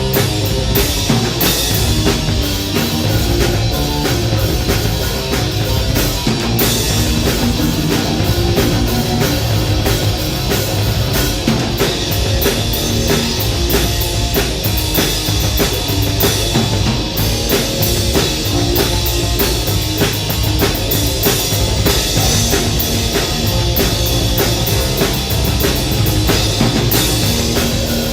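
Live rock band playing loud and steady: full drum kit with distorted electric guitar and bass, no vocals.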